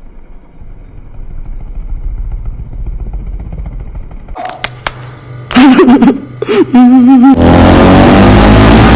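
Motorcycle with a loud aftermarket exhaust: a low engine rumble, then a few sharp blips of the throttle about four and a half seconds in, and from about seven seconds very loud, the pitch rising as it accelerates.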